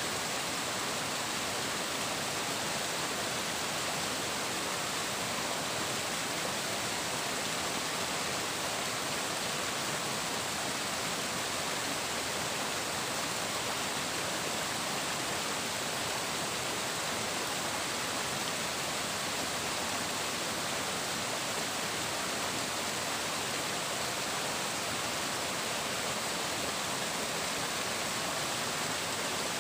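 Flowing water, a steady, even rush that never changes.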